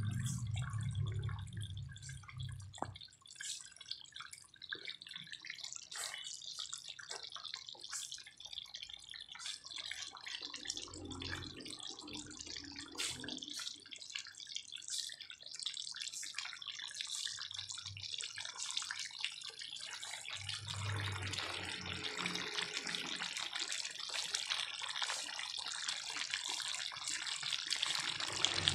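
Chicken afritada stew simmering in a pan, the sauce bubbling with scattered small pops; about two-thirds through the bubbling thickens into a denser, steady hiss. A low hum is heard in the first few seconds.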